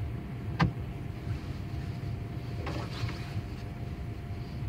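Car running at low speed, a steady low rumble heard from inside the cabin, with one sharp click about half a second in.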